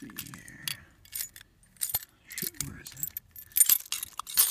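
A bunch of keys jangling and clinking in a hand in short, uneven bursts, loudest near the end.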